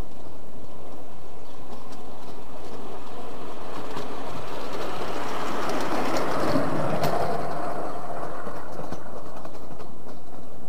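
Ride-on miniature park railway train approaching, rolling past close by about six seconds in and moving away, its wheels clicking on the track as the cars pass.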